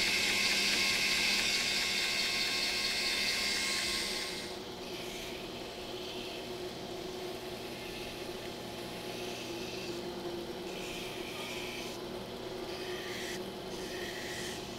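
Belt grinder running with a knife's handle held against its contact wheel: a loud, steady sanding hiss for about the first four seconds, then the motor's steady hum under a string of short touches of the handle to the belt.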